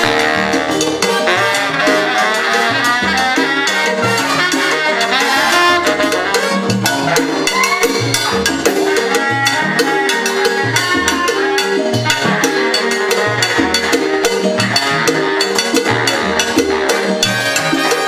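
A Latin jazz big band playing salsa live: saxophone and brass sections over bass, piano and Latin percussion, with a steady driving beat.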